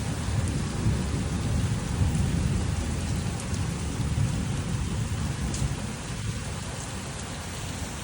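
Steady heavy rain falling, with a low rolling rumble of thunder underneath that is strongest over the first five seconds and eases off after about six seconds. A few single drops tick out above the hiss.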